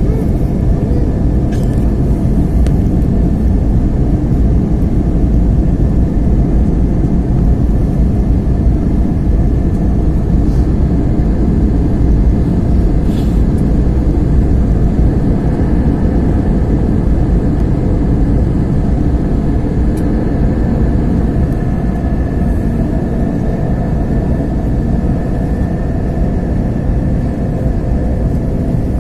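Airliner cabin noise during descent: a steady, loud low rumble of jet engines and rushing air, with a few faint ticks.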